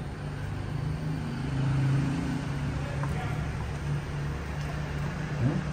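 Steady low electrical hum of an induction cooktop heating a frying pan, with a short rising squeak near the end.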